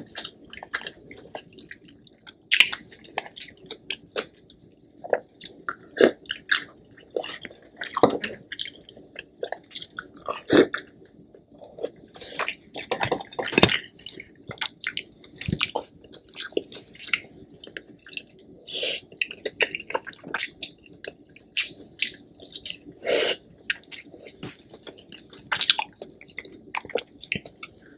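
Close-miked eating: chewing with irregular sharp clicks and wet squishes as sauce-coated Dungeness crab is pulled apart by hand.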